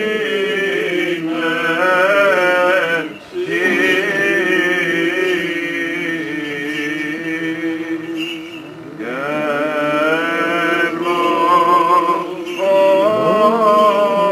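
Greek Orthodox Byzantine chant sung by male voices: a slow, ornamented melody over a steady held low note, with two short breaths between phrases.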